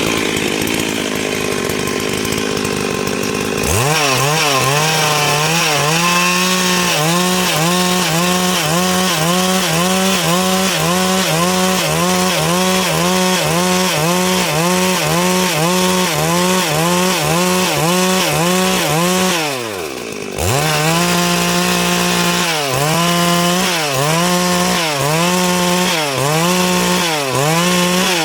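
Stihl MS 382 two-stroke chainsaw cutting wood. After a few seconds of rough, noisy cutting, the engine's pitch dips and recovers in a steady rhythm, about three times every two seconds, as it loads and unloads in the cut. It briefly drops off about two-thirds of the way through, then picks up again.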